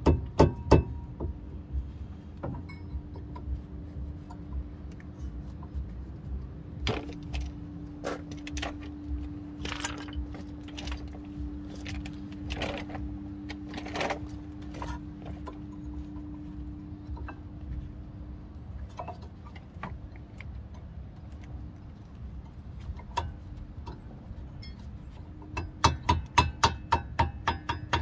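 Hammer tapping new rear brake pads into the caliper bracket, with metal-on-metal clinks from the pads and their hardware. Three sharp taps come at the start, scattered clicks follow through the middle, and a quick run of about ten taps comes near the end.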